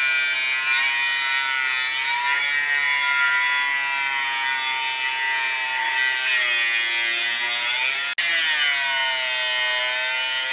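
Electric angle grinder with a cut-off disc cutting through rectangular steel tube: a loud, steady motor whine whose pitch dips and recovers several times as the disc is pressed into the metal, with a brief break a little after eight seconds.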